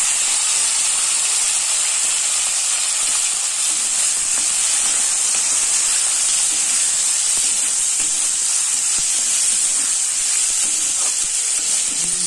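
Chopped onion, potato, tomato and green chillies sizzling in hot oil in a metal kadhai: a steady, loud hiss of frying.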